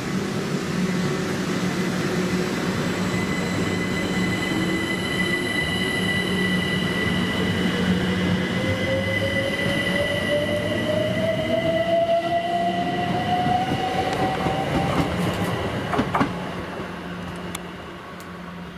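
Train running at the station, a steady rumble with high steady whines and a tone that rises slowly in pitch as it gathers speed, then fading near the end.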